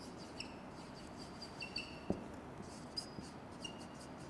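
Marker writing on a whiteboard: faint scratching strokes with short high squeaks, and a light tap on the board about halfway through.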